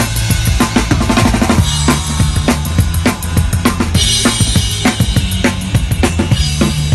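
Rock band playing live, with the drum kit to the fore: a steady, even beat of bass drum and snare over bass-guitar notes, and cymbals ringing from about the middle.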